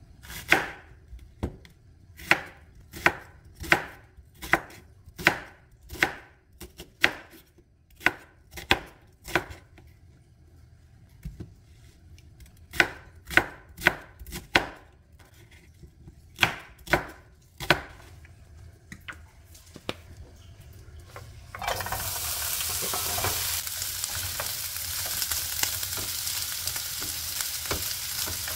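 Chef's knife slicing a whole onion on a wooden cutting board, a sharp stroke a bit more than once a second with a couple of short pauses. About 22 seconds in it changes to sliced onions frying in a pan with a steady sizzle, sautéed to be caramelised.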